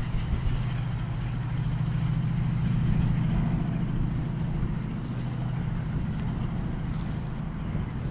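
Diesel engine running steadily at a low, even drone.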